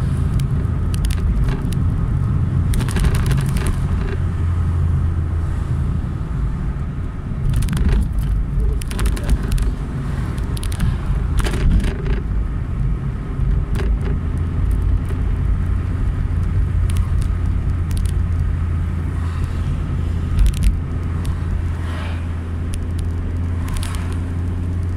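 A car running in traffic: a steady low rumble of engine and road noise, with a few brief knocks scattered through it.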